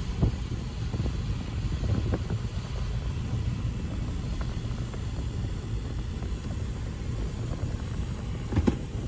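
A Union Pacific freight train rolls steadily across a grade crossing, heard as a low continuous rumble from inside a stopped car. There is a sharper knock near the end.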